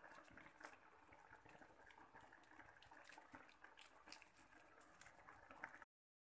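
Faint bubbling and crackling of instant noodles simmering in a wok of liquid on the stove, a steady haze of small pops and ticks. The sound cuts out abruptly near the end.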